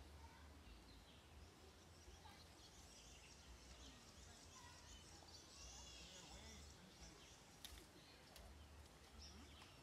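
Near silence: faint outdoor ambience with small birds chirping faintly in the distance, and two faint sharp clicks near the end.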